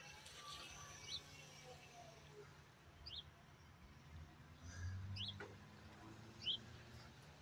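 A bird's short, high chirps, repeated about every one to two seconds, over a faint low steady hum.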